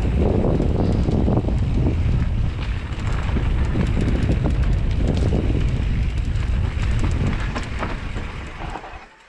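Wind buffeting the microphone during a fast downhill run, a loud low rumble with scattered small rattles and ticks. It falls away sharply near the end as the run slows.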